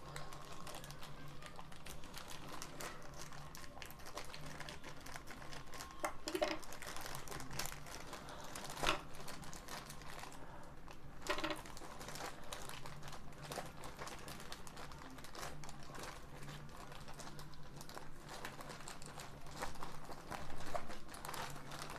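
Plastic courier mailer bag crinkling and rustling as hands handle it and tear it open, with a few sharper crackles along the way.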